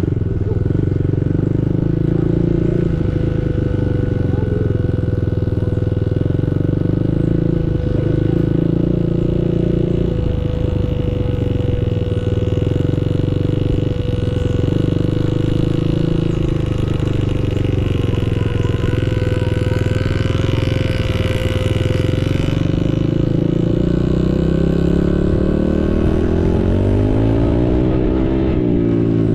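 Small dirt-bike engine running steadily at riding speed, heard close up, with its pitch swinging up and down near the end as the throttle changes.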